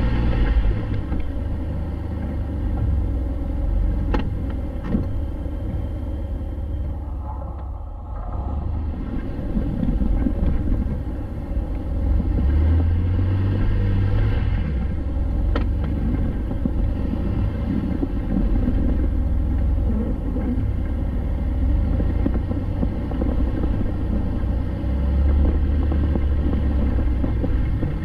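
Jeep Wrangler driving, its engine running with a steady low rumble throughout. A few light sharp knocks come through, two around four to five seconds in and one midway.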